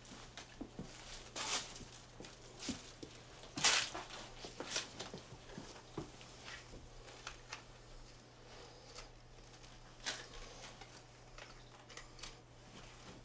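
Soft movement and handling noises: scattered light knocks, clicks and short rustles of clothing and shuffling feet, the loudest rustle about four seconds in, over a steady low hum.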